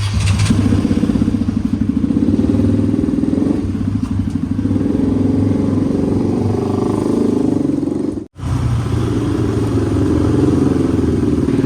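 Motorcycle engine running under way, a steady buzz with some rise and fall in pitch. The sound cuts out for an instant about eight seconds in, then carries on.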